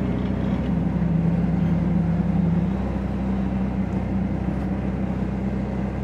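Bobcat S185 skid steer's Kubota diesel engine running steadily. A lower, slightly louder note joins it for about two seconds, starting about a second in.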